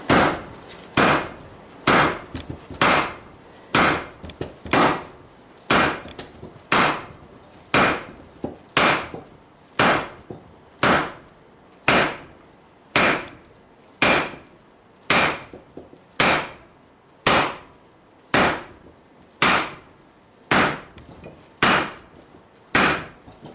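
Heavy 12-pound sledgehammer striking hot steel on a cast-iron Vulcan anvil, steady blows about once a second.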